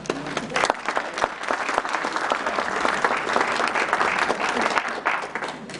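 Audience applauding. Dense clapping starts about half a second in and stops just before the end.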